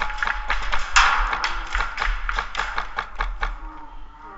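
A quick, irregular string of sharp cracks from airsoft gunfire, stopping about three and a half seconds in.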